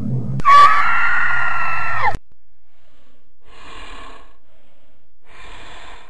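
A loud dubbed-in scream sound effect, held for about a second and a half and dropping in pitch as it cuts off, followed by two fainter, noisier bursts.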